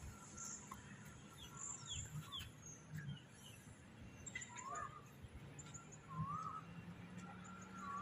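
Several birds calling: short, high chirps that drop in pitch, and a repeated wavering whistled note about once a second in the second half.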